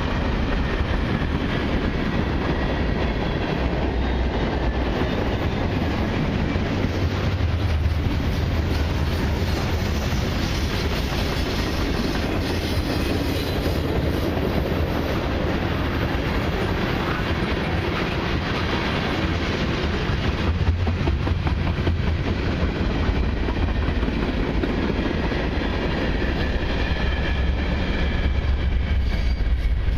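Freight cars of a long mixed and autorack train rolling steadily past: continuous wheel-on-rail noise with a strong low rumble.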